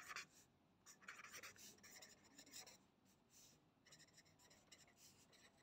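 A pen writing on lined notebook paper: faint scratching strokes in short runs with brief pauses between them.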